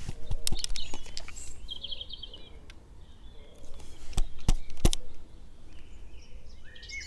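A few sharp clicks and taps as a Canon 1D X camera body is handled and turned over, with birds chirping faintly in the background.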